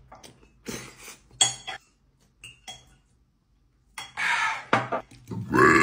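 A metal fork clinks and scrapes against a ceramic plate a few times, with one sharp ringing clink. From about four seconds in come belching sounds, the loudest one near the end.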